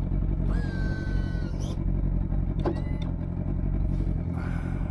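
Boat engine idling steadily with a low, even hum, running smoother after a cleaner was put through it to clean it out.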